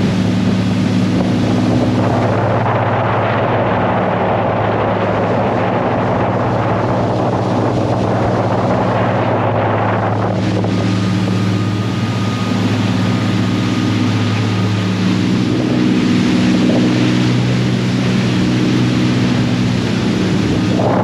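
31 Bertram sportfishing boat under way: steady engine drone with wind and rushing water. The rush is heavier in the first half and eases about ten seconds in.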